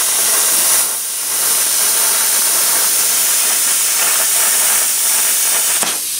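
Plasma cutter cutting through steel strap: a loud, steady hiss with a brief dip about a second in, cutting off at the end as the cut finishes.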